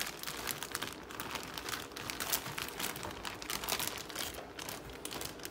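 Plastic bag of marinating portobello mushrooms being handled, the plastic crinkling in a steady run of irregular crackles.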